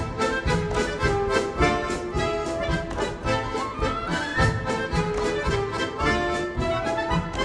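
Bayan (Russian button accordion) playing a fast, lively dance tune in quick, sharp, evenly spaced beats.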